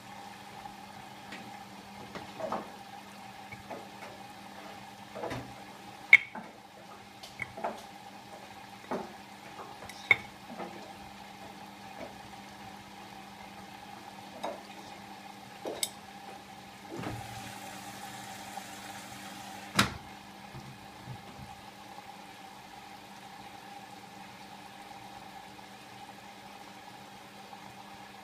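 Siemens iQ700 front-loading washing machine early in a Rapid 20 wash: a steady motor hum with water filling and sloshing in the drum, and scattered knocks as the load tumbles. Past the middle a hiss runs for about three seconds and ends in a sharp click.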